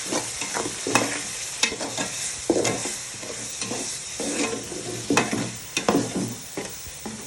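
Tomato paste, onion and seasoning sizzling as they fry in a pot, with a spoon stirring and scraping against the pot in irregular clicks.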